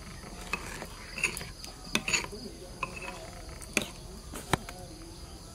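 Metal spoon stirring a sauce in a ceramic bowl, clinking and scraping against the bowl's side several times at uneven intervals. Insects chirr steadily in the background.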